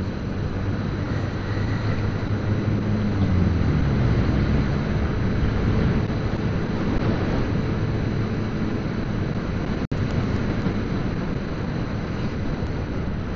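Motorcycle engine running while riding, its pitch rising and falling a little with the throttle, under steady wind noise on the microphone. The audio cuts out for an instant about ten seconds in.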